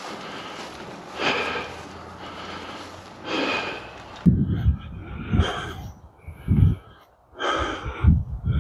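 A person breathing heavily, with loud breaths about every two seconds, while pushing a wheelbarrow. About four seconds in the sound changes abruptly to a series of short, low thumps and knocks.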